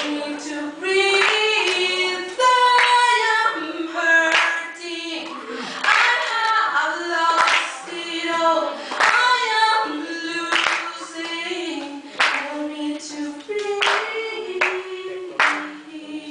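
A woman singing a cappella into a microphone, her voice moving through held and gliding notes, with sharp hand claps keeping time about every second and a half.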